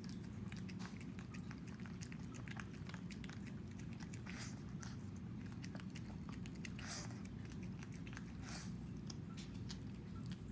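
Shih Tzu eating leftover sardines and rice off a plate: a quick, uneven run of small wet chewing and licking clicks, with a few louder, longer ones.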